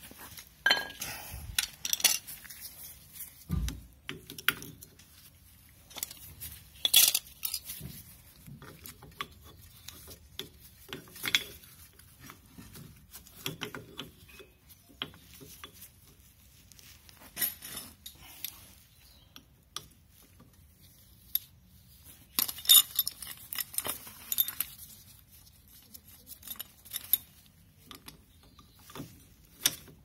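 Scattered metallic clinks and taps as a Honda Elysion's rear brake caliper and a metal hand tool are handled and knocked together, with the loudest clinks about 7 seconds and about 23 seconds in.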